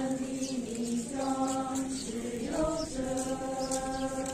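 A group of voices chanting a Buddhist prayer in long held notes, the pitch stepping to a new note about a second in and again a little past halfway.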